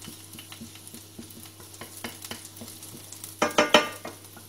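Wooden spatula stirring chopped garlic in olive oil in a non-stick frying pan, with light taps and scrapes against the pan over a soft sizzle. A brief, louder pitched sound comes about three and a half seconds in.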